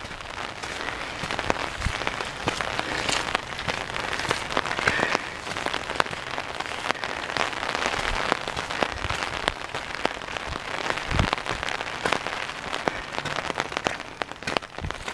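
Rain falling, a steady hiss with many single drops ticking sharply.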